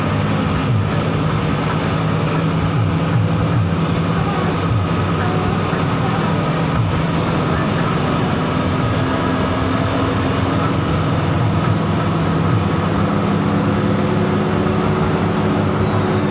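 Intercity bus engine and road noise heard from inside the cabin while driving: a steady drone with a faint high whine above it.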